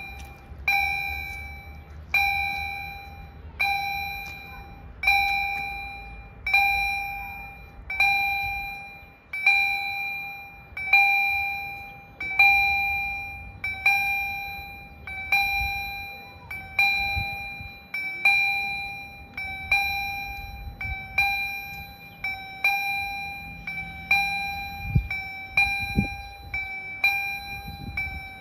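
Level-crossing warning bells (EHL-S10 electronic bells) striking one ringing ding about every 1.4 seconds, each fading before the next, sounding the warning as the crossing closes for an approaching train. A couple of low thumps come near the end.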